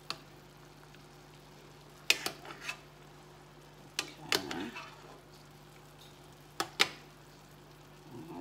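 A spoon clinking and scraping against a cast-iron skillet while sauce is spooned over simmering chicken wings: a few sharp knocks in small clusters a couple of seconds apart, over a low steady hum.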